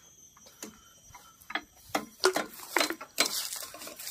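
Irregular sharp clicks and knocks, sparse at first and coming thicker about halfway through, from truck batteries and their jump cables and clamps being handled.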